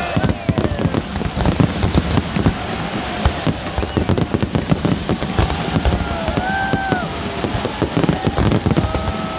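Fireworks display: a dense, continuous run of overlapping bangs and crackles from many shells bursting at once, with sharper reports standing out here and there.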